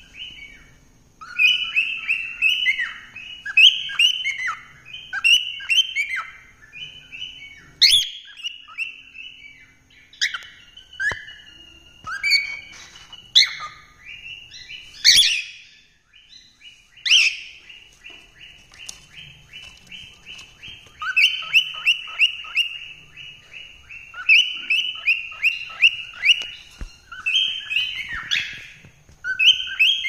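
Cockatiels singing: fast runs of short warbled, chirping notes, broken now and then by a few sharp, louder calls.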